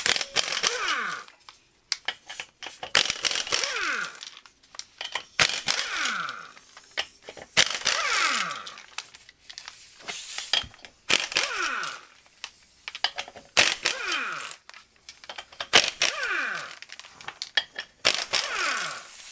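Air impact wrench run in short bursts, about eight times, spinning off the front wheels' lug nuts, each burst ending in a falling whine as the air motor spins down.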